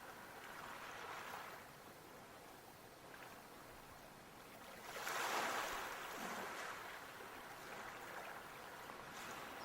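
Sea waves washing onto the shore, one wave swelling up about halfway through and then falling away.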